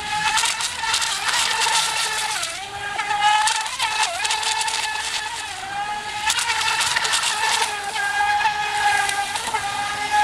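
RC speedboat motor running at high speed with a steady high-pitched whine that dips in pitch a couple of times and picks back up, over a hiss of the hull skimming the water.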